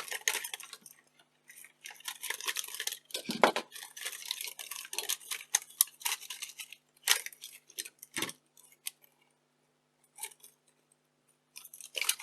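Clicking, scraping and rattling of plastic casing and small parts as a 1980s camcorder is taken apart by hand. There is a dense run of clatter with a few sharper knocks, then sparser clicks and a short burst near the end.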